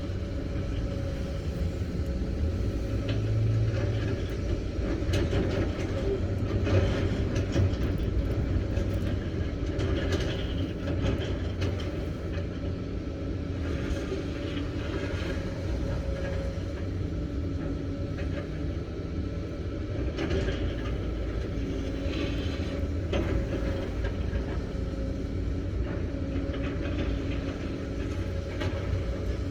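A SANY excavator's diesel engine running steadily under load, with repeated metallic clanks, knocks and scraping from the machine at work.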